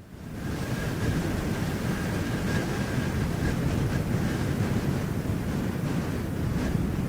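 Wind buffeting the microphone: a steady, rumbling rush that fades in over the first second.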